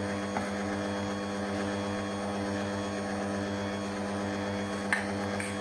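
Electric stand mixer running steadily at a constant speed, its motor humming as it beats flour into an egg, sugar and oil batter. A few light clicks of a metal spoon against the steel bowl come about half a second in and again near the end.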